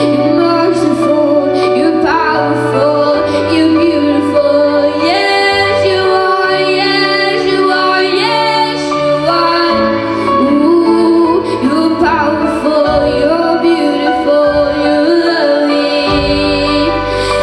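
Music with a woman singing a slow melody over sustained instrumental chords and a bass line.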